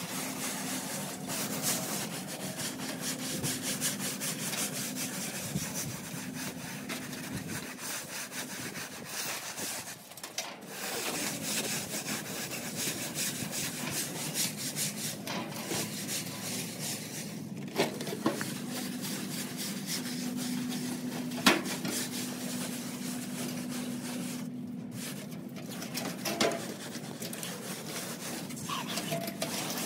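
Hand float rubbed over fresh render on a wall in quick, repeated strokes, a continuous scraping, as the render is floated to a textured finish. A couple of sharp knocks come about two-thirds of the way through.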